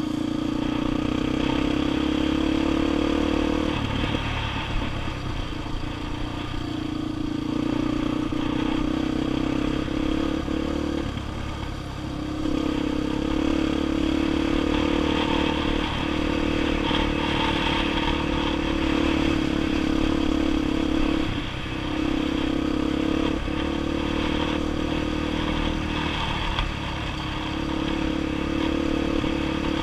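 A 230 cc single-cylinder four-stroke dirt bike engine running under steady throttle while riding. The engine note drops briefly and picks up again about four, eleven, twenty-one and twenty-seven seconds in.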